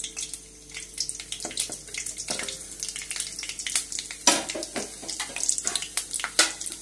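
Whole spices (cardamom, cloves and cumin seeds) sizzling in hot ghee and oil in a kadhai, with a steady hiss and irregular crackling pops. A denser burst of crackling comes about four seconds in. This is the tempering (tadka) stage, with the oil hot enough to make the seeds spit.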